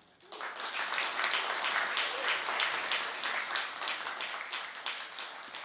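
Audience applauding: many hands clapping together, starting about a quarter second in and thinning into scattered separate claps near the end.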